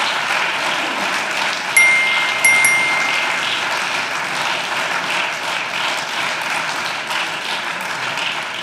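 Members of parliament applauding, a dense, steady clapping. About two seconds in, two short bright chime tones sound less than a second apart.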